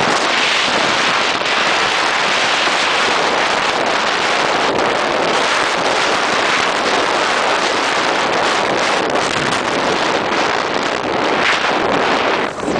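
Loud, steady wind rush on the microphone of a moving Cagiva W16 motorcycle, with the bike's running blended into it. It eases briefly near the end.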